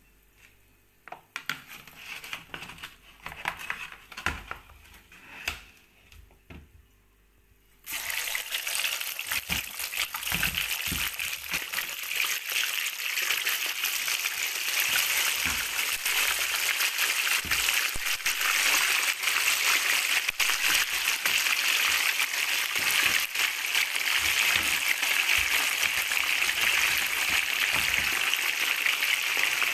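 A few scattered clicks and knocks of handling, then about eight seconds in a sudden loud, steady sizzle of coated chicken wings deep-frying in hot oil in a pan, with an occasional low thud as the pieces are moved.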